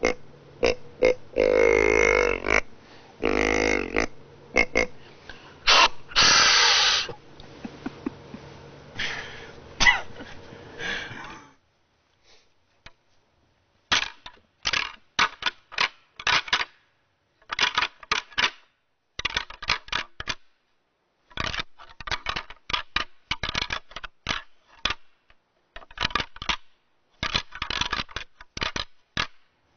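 Deer grunt call blown in a series of short grunts, then, after a pause of a couple of seconds, rattling antlers clashed and ground together in repeated bursts of sharp clacks, imitating bucks sparring to draw in a rutting buck.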